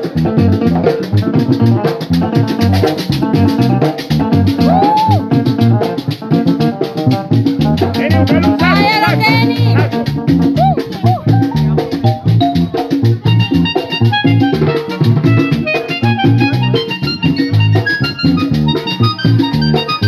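Roland digital accordion (V-Accordion) played in a fast Latin dance style: a note-by-note melody over a busy, even rhythm with percussion.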